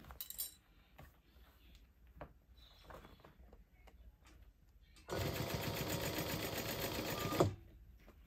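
Juki industrial sewing machine stitching a purse seam in one steady run of about two and a half seconds, starting about five seconds in and stopping abruptly. Before it, only faint clicks and rustles of the work being handled and repositioned.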